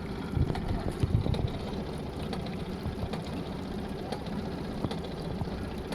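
Honda BF20 four-stroke outboard motor running with repeated knocking, which the owner traces to the engine or the lower-unit gearbox. There are a few louder thumps about a second in.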